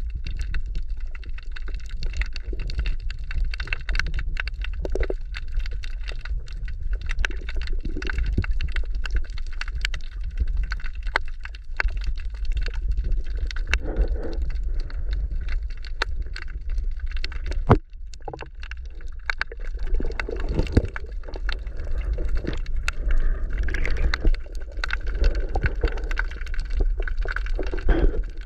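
Underwater sound picked up by a camera moving among rocks: a steady low rumble of moving water with scattered clicks and crackles, and one sharper knock a little past the middle.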